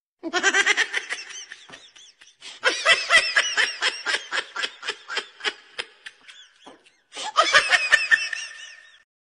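A person laughing in three bouts of quick, evenly repeated ha-ha pulses with a fairly high pitch, the middle bout the longest and tailing off.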